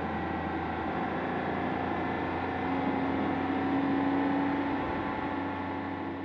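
Porsche 997 Carrera S flat-six engine running at a steady cruise over tyre and road noise, swelling a little midway and starting to fade near the end.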